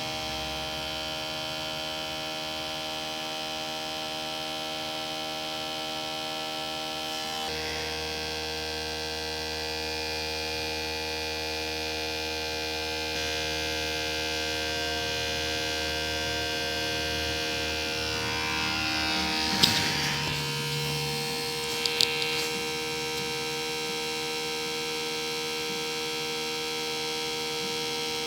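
DVD drive spinning a disc: a steady hum and whine made of several tones, whose pitch pattern shifts about 7 seconds in and again about 13 seconds in. A sharp click comes about 20 seconds in and two more about 22 seconds in.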